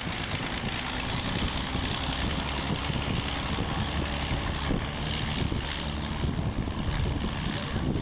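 Vintage Oliver tractor engine running steadily as it pulls a moldboard plow through the field, coming close past.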